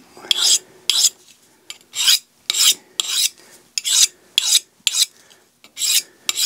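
Steel edge of a Buck fixed-blade knife scraped in quick strokes along a Victorinox ceramic honing rod, about two strokes a second. The knife is being honed to bring a dulled edge back.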